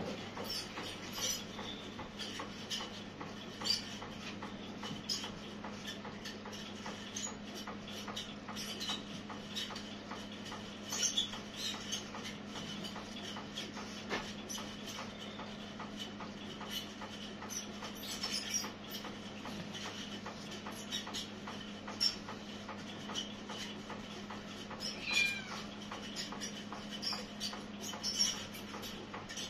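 Young tabby cat making a few short meows while its head is scratched, over a steady low hum; one meow about 25 seconds in falls in pitch.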